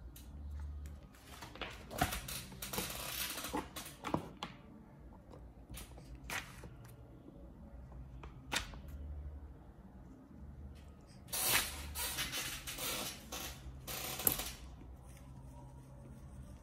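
Handling noise: rustling and knocks as a paper workbook is set down open on a wooden table and the recording device is repositioned. It comes in two noisy stretches with a few sharp clicks between them.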